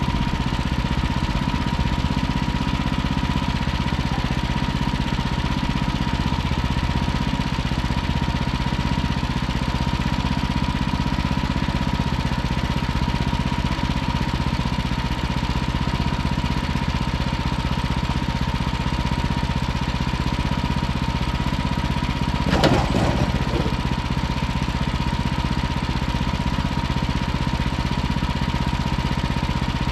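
Wood-Mizer sawmill's engine running steadily under a constant whine. About three-quarters of the way through there is a brief louder burst that falls in pitch.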